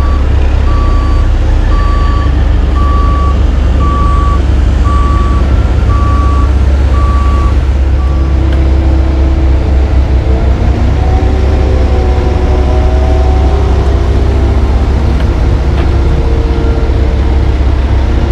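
Heavy diesel engines of paving equipment running with a steady low rumble, while a backup alarm beeps about once a second. The beeping stops about eight seconds in; the engine noise carries on with a wavering whine over it.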